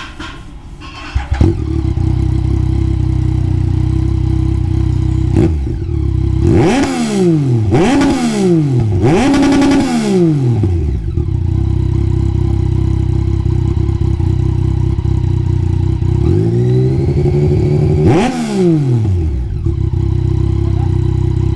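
Yamaha MT-09's three-cylinder engine running through an Akrapovic titanium full exhaust system. It comes up to a steady idle about a second in, then is blipped three times in quick succession, with one more rev about three-quarters of the way through.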